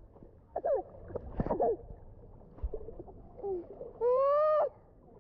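Children's voices muffled by pool water: a few short gliding calls, then one longer held call about four seconds in.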